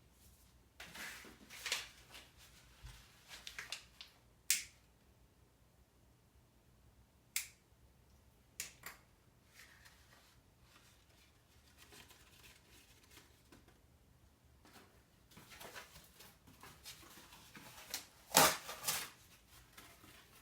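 Sharp clicks and knocks with short bouts of rustling, from the fire being lit and tended in a wood-burning fireplace stove. A single knock about four seconds in, a few more around seven to nine seconds, and the loudest cluster of hits near the end.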